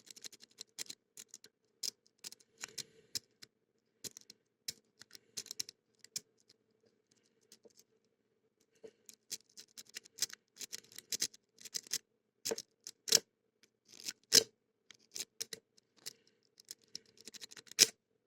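Lock pick and tension wrench working the pin tumblers in the brass cylinder of an aluminium padlock: irregular small metal clicks and scratches, sparse for a couple of seconds about a third of the way in, then busier, with the loudest click near the end.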